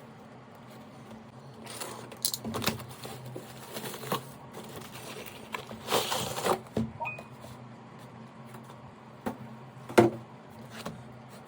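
Packaging being handled: rustling and scraping with scattered clicks and knocks, the loudest a sharp knock about ten seconds in, over a faint steady hum.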